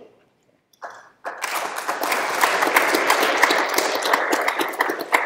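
Audience applauding, starting about a second in and tapering off near the end.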